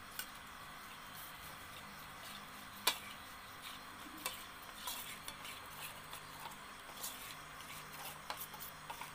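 Metal spoon stirring a chickpea-flour batter in a steel bowl, with irregular clinks of the spoon against the bowl's side.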